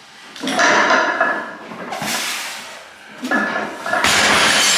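Loud vocal efforts and forceful breaths of a strongman bracing for and pulling a 250 kg raised deadlift. Strained, pitched shouts come about half a second in and again near the end, with a hissing breath around two seconds in.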